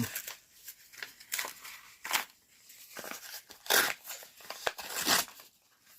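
A heavily taped paper envelope being torn open by hand: a series of short ripping and crinkling sounds, the loudest about two, four and five seconds in.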